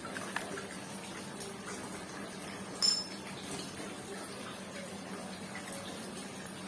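Handling of a small component-speaker tweeter and its housing: faint rustling and a light click early on, then one sharp metallic click with a brief high ring about three seconds in, as the tweeter housing is opened, over a steady faint hum.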